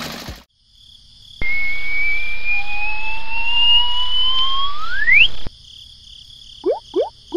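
Cartoon sound effects: two whistle tones glide slowly upward together for about four seconds, the lower one sweeping steeply up at the end, then short rising pops about three a second near the end.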